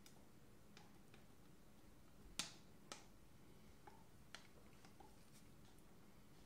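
Wooden stirring stick scraping and tapping inside a small plastic cup of resin: a string of faint, sharp clicks, the loudest two about two and a half and three seconds in, over near silence.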